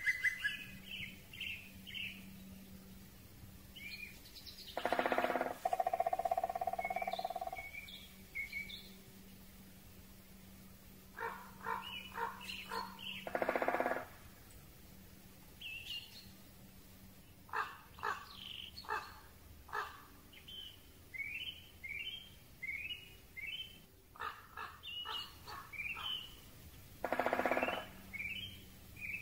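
Great spotted woodpecker drumming on a tree: three short, fast rolls, about half a second each, several seconds apart. Small songbirds sing short chirping phrases in between.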